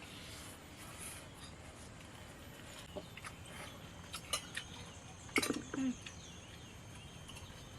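Eating sounds: a few light clinks of spoons on plates over a faint steady background hiss, and a short low vocal sound a little past the middle.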